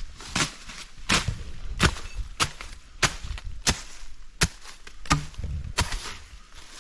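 Repeated chopping: about ten sharp blows struck at a steady, even pace of roughly one and a half per second, as a blade bites into wood or vegetation.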